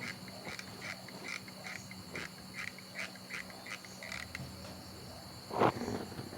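Insects chirping in a steady rhythm, two to three chirps a second, over a steady high trill. A single loud knock about five and a half seconds in.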